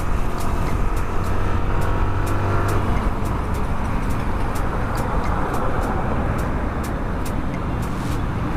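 Yamaha R15 v2's single-cylinder engine running on the move, its steady note fading into road and wind noise after about three seconds.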